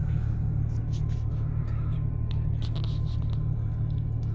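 2003 Chevrolet Silverado's engine idling, a steady low rumble heard inside the cab, with a few faint clicks about halfway through.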